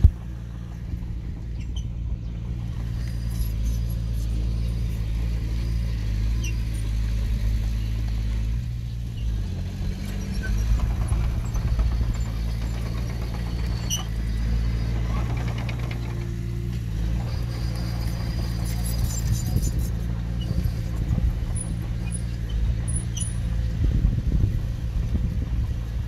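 Diesel engine of heavy earthmoving machinery running steadily, its pitch shifting briefly around nine seconds in.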